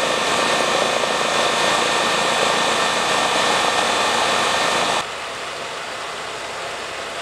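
Steady drone of engine-driven rescue equipment running at the crash scene: an even rush with several steady tones in it. It drops abruptly to a quieter drone about five seconds in.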